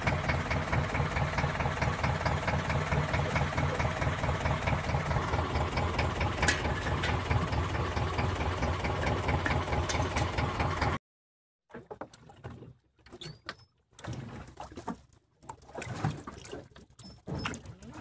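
Boat engine running steadily with a fast, even pulse, cutting off abruptly about eleven seconds in. After that, only faint scattered knocks and rustles.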